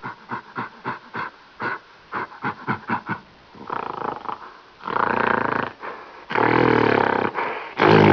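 Animal calls: a quick run of about a dozen short calls over the first three seconds, then several longer, drawn-out pitched calls, the loudest one near the end.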